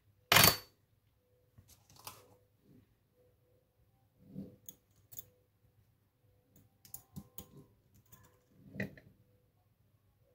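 Metal lock picks and a tension tool clicking and tapping against a padlock during picking: one sharp, loud click about half a second in, then scattered lighter clicks and taps, including a pick being set down on the table.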